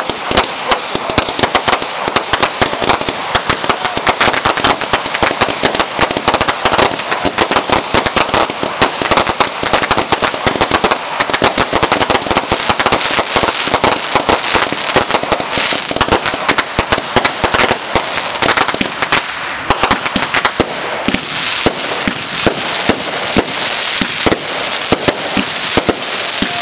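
Fireworks firing in a continuous barrage: rapid crackling and popping of small bursts over a steady hiss as shells launch and burst overhead.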